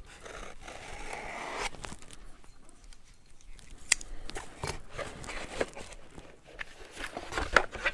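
A box cutter slicing through packing tape on a cardboard shipping box, followed by the cardboard flaps being pulled open and the box handled with rustles and light knocks. A single sharp click about four seconds in.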